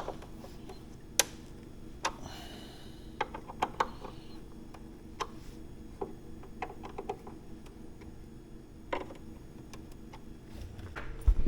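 Scattered light clicks and taps of hand tools and plastic fairing parts being handled, at irregular intervals over a faint steady hum.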